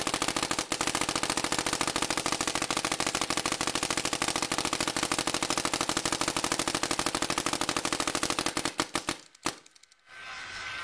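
Planet Eclipse Ego9 electropneumatic paintball marker firing a fast, steady stream of shots, many a second. Near the end the shots thin out and stop, with one last shot just after.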